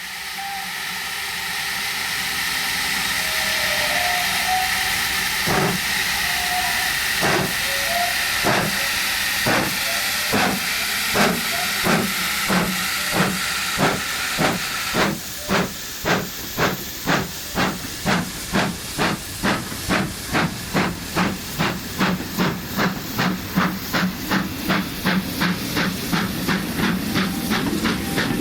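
Steam locomotive starting away: a steady hiss of escaping steam, then exhaust chuffs beginning about five seconds in, slow at first and quickening to about three a second.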